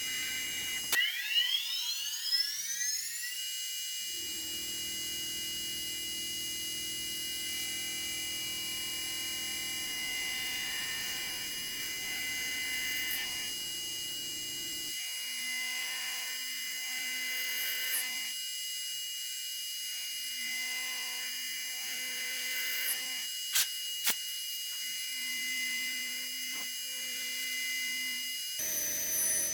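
High-speed CNC milling spindle whining steadily while an end mill cuts aluminium, with a rising whine as the spindle spins up about a second in. The lower cutting sound changes abruptly several times, and there are two sharp clicks near the end.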